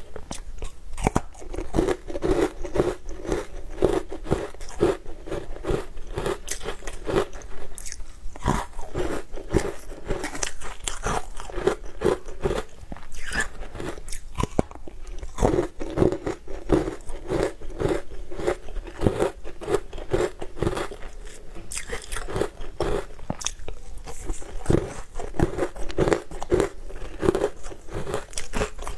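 Close-up crunching and chewing of a compacted green powder eaten off a spoon: dense crisp crunches in a steady chewing rhythm of a few bites a second.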